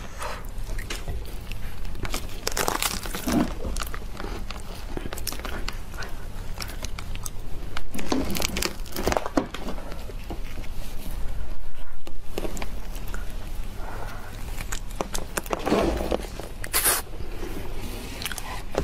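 Ripe durian pulled apart by hand: soft, sticky flesh pods torn out of the split spiky husk, with uneven tearing and crinkling sounds in bursts, the loudest about three, eight and sixteen seconds in.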